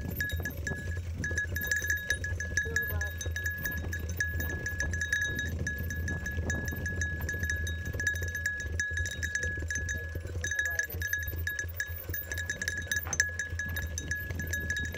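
Mountain bike rolling down a dirt trail: a steady buzz of rapid ticking from the rear hub as it coasts, with bike parts clinking over the bumps and a low rumble of tyres and wind. The buzz drops out briefly about ten seconds in.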